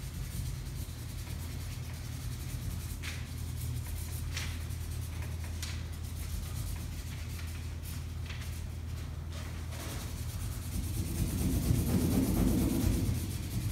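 Felt-tip marker pens stroking and rubbing on paper taped to a wall, in short scattered strokes over a steady low hum. A louder low rumble comes about eleven seconds in and lasts a couple of seconds.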